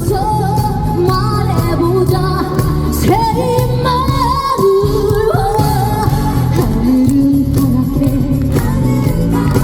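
A woman singing a trot song live over loud amplified band accompaniment with a steady bass beat, holding long notes with vibrato.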